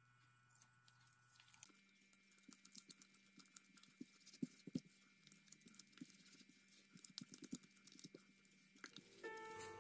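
Faint, irregular wet squelches and pats of a hand working eggs, butter, sugar and oil together into a soft batter in a bowl. Piano music comes in near the end.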